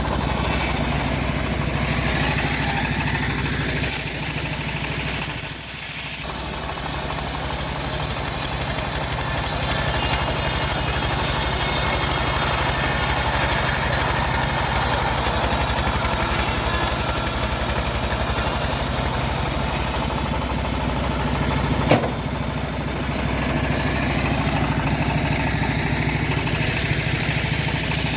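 Engine of a homemade band sawmill running steadily, a low even hum that dips briefly about six seconds in, with one sharp knock about three-quarters of the way through.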